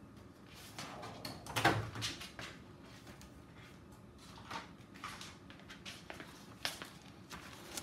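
Someone rummaging for a pen and paper: scattered knocks and clicks of things being moved and handled, the loudest a little under two seconds in.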